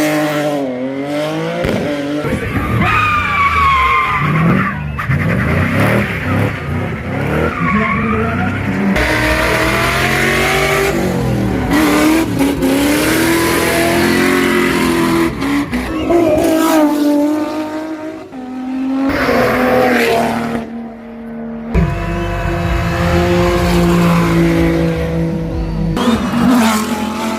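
Hill-climb race cars at full throttle, several in turn. Engine pitch climbs and drops again and again through gear changes, with two short lulls between cars.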